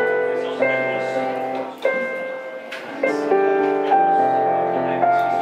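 Piano played slowly: chords and melody notes struck about once a second, each left ringing into the next.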